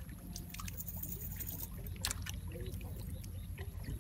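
Mud-soaked cast net being worked by hand in wet mud: soft wet handling noise with a few sharp clicks, the clearest about two seconds in, over a low steady rumble.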